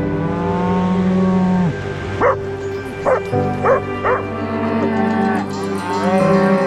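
Cattle mooing, one long call in the first second and a half and another near the end, with a small dog giving four short, sharp barks in between. Background music plays underneath.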